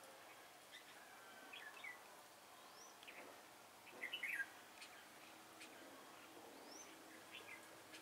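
Red-whiskered bulbuls calling in short, faint chirping phrases, with the loudest burst about halfway through and a couple of short rising whistles among them.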